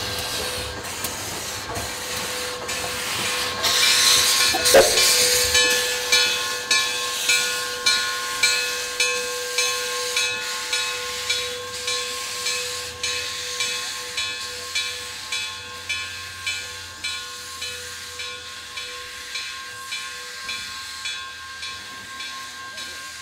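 Steam locomotive: a loud hiss of steam, then steady, evenly spaced exhaust chuffs, a little under two a second, that slowly fade, over a steady tone.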